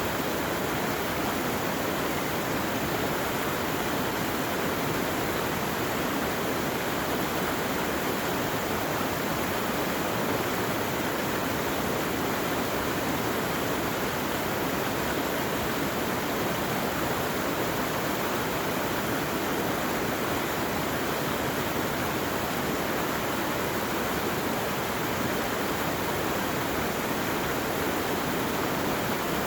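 Steady rush of fast-running water, like a mountain stream or small waterfall, unchanging throughout.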